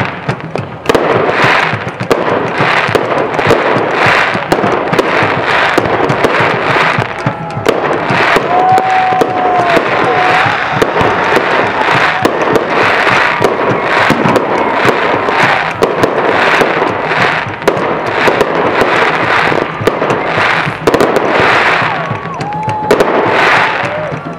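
Aerial firework shells bursting in a rapid, continuous barrage with crackling, loud, picking up about a second in. A few short whistling tones rise and fall among the bangs.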